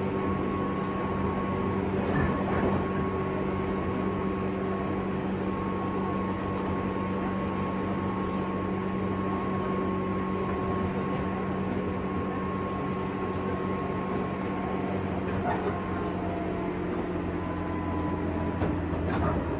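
JR West 201 series electric train running at speed, heard inside a motor car: a steady rumble with several held tones, and a few short knocks of wheels over rail joints.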